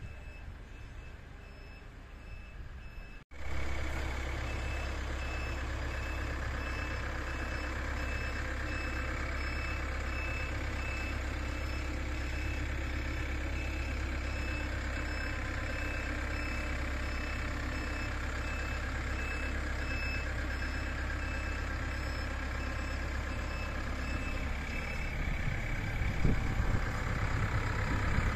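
Tracked drilling rig with a regular warning beeper sounding. After a sudden cut about three seconds in, the rig's engine runs steadily under the beeps, and it grows louder and rougher near the end.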